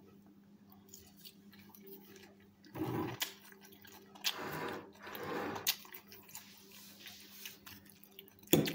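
A fork digging into a salad and clicking sharply once against a china plate near the end, over a low steady hum with a few soft noises in the middle.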